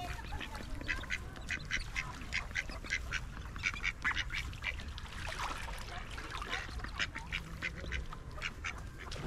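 A group of ducks quacking: many short calls, several a second and overlapping, over a steady low rumble.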